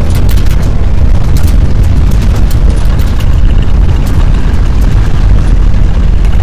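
Loud, deep continuous rumble with scattered crackles and rattles: the sound of an earthquake's strong shaking.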